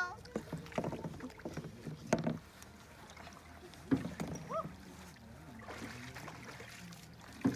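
Scattered hollow knocks and bumps from a red plastic kayak and its paddle as a person climbs out of it at the water's edge. The loudest knock comes about two seconds in.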